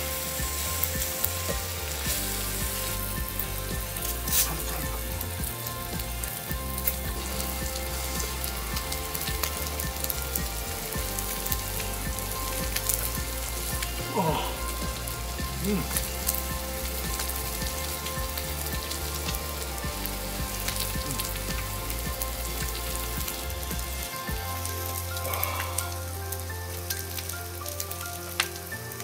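Food frying in a hot pan, a steady sizzle and crackle with a few sharper pops.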